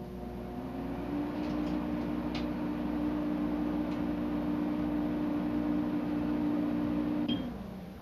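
Microwave oven running with a mug inside: a steady hum that rises slightly in pitch about a second in, then holds. The hum cuts off near the end with a brief high blip.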